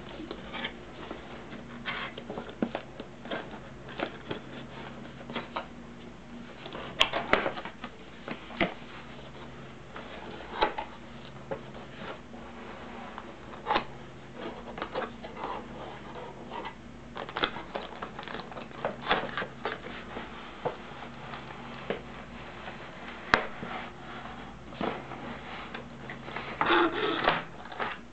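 A cardboard model-kit box and its packaging being handled and opened: scattered irregular taps, scrapes and flaps of cardboard, with a louder bout of rustling near the end.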